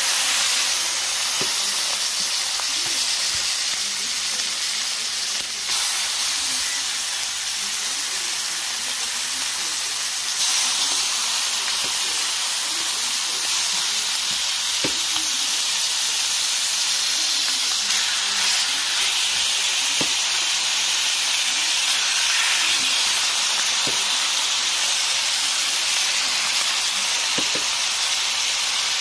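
Raw chicken breast pieces sizzling steadily as they fry in hot melted butter in a pan, with a few faint clicks as pieces are handled.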